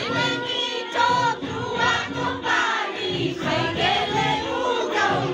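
Loud music with several voices singing, holding long wavering notes over a steady accompaniment.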